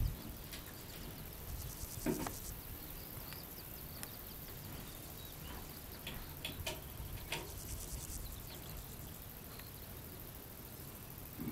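Quiet outdoor wetland ambience: a steady low rumble with scattered short chirps and calls of distant birds, and a soft knock about two seconds in.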